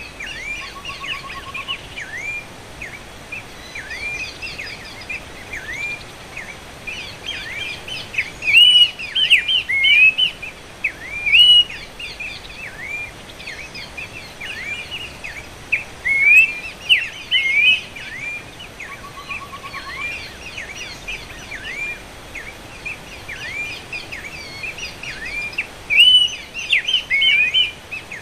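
Horsfield's babbler calls: quick series of sharp, down-slurred whistled notes, coming in louder bursts every few seconds. A brief faint trill sounds twice.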